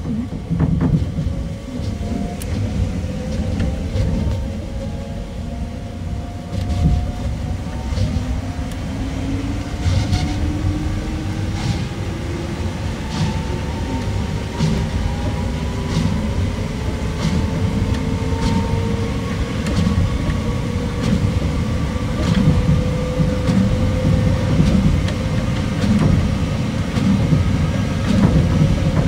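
Osaka Monorail 2000 series straddle-type monorail train running: a low rumble with a motor whine rising slowly in pitch as the train picks up speed, and short clicks at fairly regular intervals of one to two seconds.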